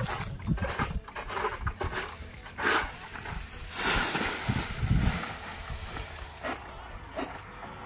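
Oil palm fronds rustling and scraping as a long-pole harvesting sickle cuts into the crown. About four seconds in comes a long swish, and a heavy thump follows about a second later as a cut frond falls through the leaves to the ground.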